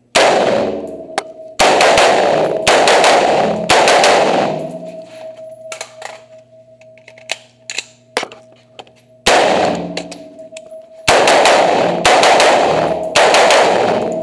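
AR-15 rifle shots fired in an indoor range, each shot echoing off the walls: a string of four shots about a second apart, a pause of about five seconds, then a second string of four.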